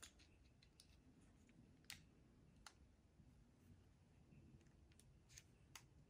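A few faint, sharp metal clicks, spaced irregularly: a spark plug wire terminal being fitted into the jaws of a hand crimper.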